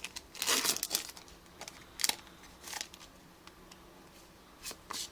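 Foil wrapper of a Yu-Gi-Oh! booster pack crinkling as the pack is opened, in a few short bursts: the longest about half a second in, then brief ones around two seconds and near the end.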